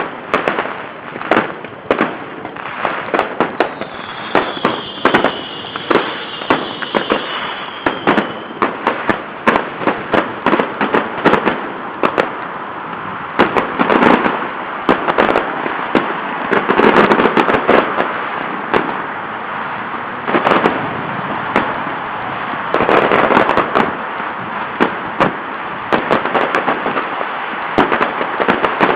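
Fireworks salute going off: rapid sharp bangs, several a second, over a dense crackling hiss that swells in loudness a few times. A high whistle sounds for a few seconds near the start.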